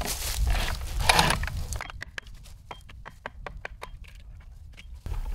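Rustling and scraping handling noise, then a run of about a dozen light, irregular clicks; the sounds of a chainsaw being worked at while it is pinched in a log's cut.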